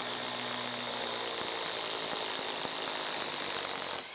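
Ryobi HP impact driver running under heavy load, driving an 8-inch TimberLOK screw into a wooden log. The sound is steady and dips slightly in level near the end.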